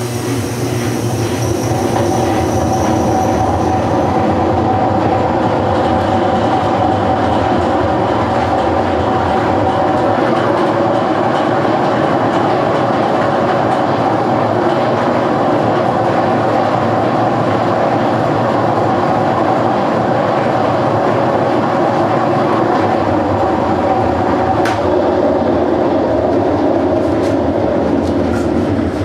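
General Electric washer running with a loud, steady mechanical noise and a whine running through it, the sound of a bad bearing; the transmission needs replacing.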